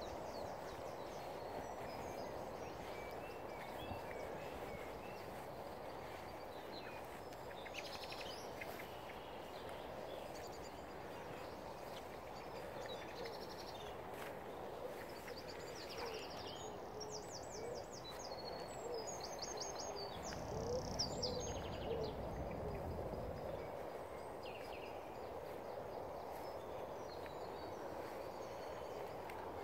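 Early-morning birdsong over a steady low background hum: small songbirds chirping and trilling, with a fast trill about two-thirds of the way through, and the low cooing of a pigeon underneath. A brief low rumble comes in around the same point.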